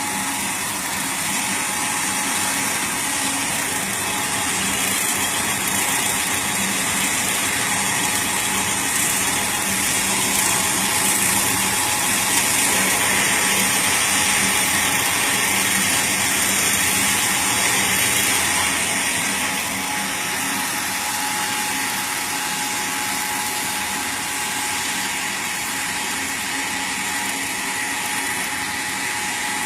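Fish-feed pellet machine running steadily, a constant mechanical drone with a high hiss and a steady tone. It grows somewhat louder in the middle, then settles back.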